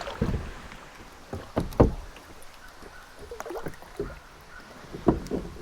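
Kayak being handled on the water: a handful of irregular dull knocks and thumps against the hull, the loudest a pair about two seconds in and another pair near the end.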